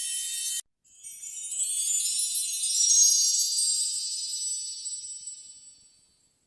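Magical twinkling, flickering sound effect: high, glittering chime-like shimmer. One sparkle cuts off abruptly just after the start. After a brief gap a new shimmer swells up, peaks around three seconds in, then fades away before the end.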